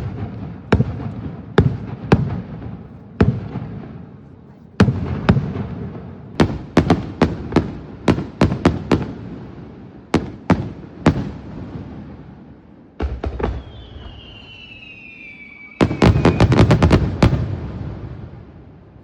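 Fireworks bursting overhead: an irregular string of sharp bangs, each trailing into a rumble. Near the end a falling whistle is followed by a rapid cluster of bangs.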